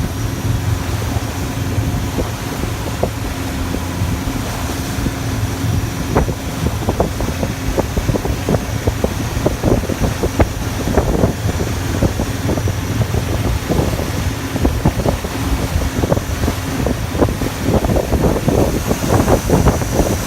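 Taxi boat's engine running steadily under way, with wind buffeting the microphone. From about six seconds in, frequent short knocks and splashes come from the hull meeting the waves.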